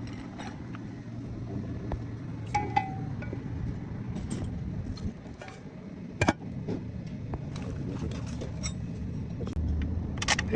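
Metal tools and parts clinking and tapping over a low steady hum. A brief ring sounds a few seconds in, and one sharper knock comes about six seconds in.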